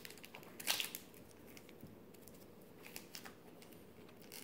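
Trading card pack wrapper being torn open and crinkled: a few short, faint rustles, the loudest about a second in.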